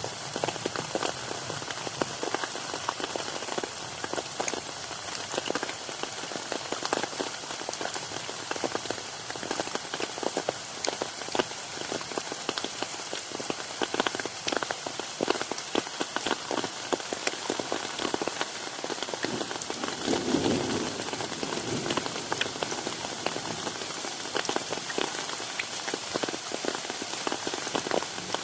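Rain falling on a garden pond: a steady hiss of rainfall dotted with many separate drop splashes.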